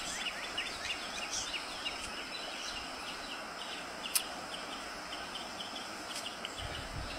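Birds chirping steadily in many short, quick calls, with one sharp smack of a kiss about four seconds in.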